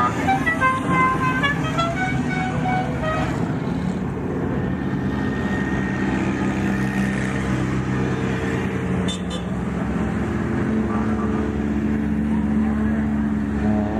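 A musical vehicle horn plays a short tune of stepped notes over the first three seconds or so, over the running of off-road race vehicle engines. After that an engine runs steadily at low speed.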